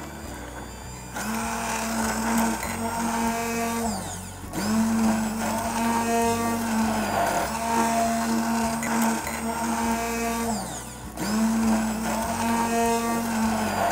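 Immersion blender running in a stainless steel container, emulsifying soy milk into a thick carob-flour ganache. The motor starts with a rising whine about a second in and runs steadily, stopping and restarting briefly twice, around four seconds in and again near eleven seconds.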